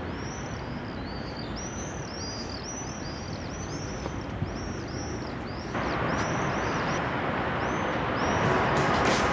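Birds chirping over and over in high, arching calls above a steady background rush. About six seconds in, a louder hiss comes in abruptly, and near the end sharp clicking beats start as music begins.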